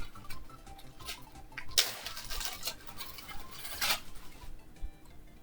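Light clinking and rattling of small hard objects being handled, amid rustling, busiest in the middle of the stretch.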